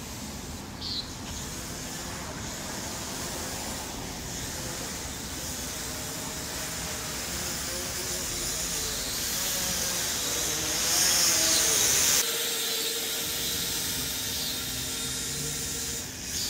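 Holy Stone HS100 quadcopter flying high overhead: a faint propeller hum wavering in pitch under a steady hiss. The hiss swells about ten seconds in and cuts off suddenly about two seconds later.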